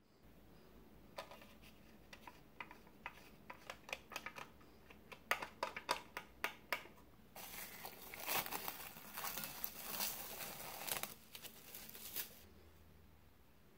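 Silicone pastry brush greasing the inside of a thin disposable aluminium foil loaf pan, the foil ticking and crinkling under it: scattered taps at first, then about five seconds of dense crinkling that stops near the end.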